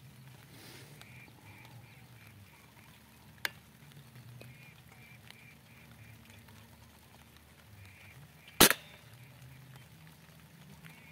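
Bird call playing on a loop from an electronic game-caller speaker: runs of quick, evenly repeated notes. A single sharp crack about eight and a half seconds in is the loudest sound, with a fainter click about three and a half seconds in.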